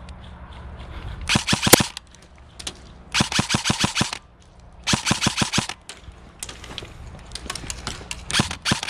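Airsoft electric gun firing on full auto in short bursts of rapid shots, four bursts with pauses between them, the last one longer.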